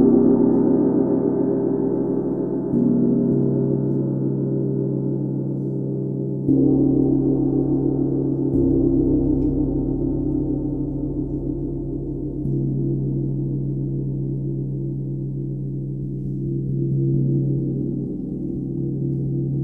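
A 32-inch UFIP brass symphonic tam-tam ringing with a dense shimmering wash of many overlapping tones. It is struck again every few seconds, and the mix of tones shifts with each new stroke.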